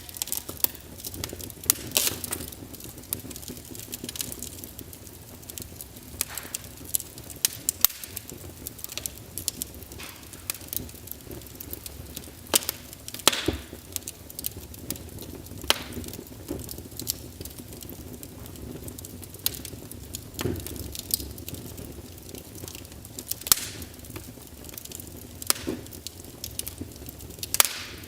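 Wood fire crackling in a fireplace. Irregular sharp pops, a few much louder than the rest, come over a steady low hiss of the burning.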